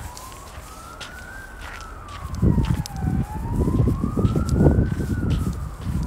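An emergency-vehicle siren wailing, its pitch rising and falling slowly, about one full rise and fall every three and a half seconds. From about two seconds in, louder low scuffing noise from footsteps comes in over it.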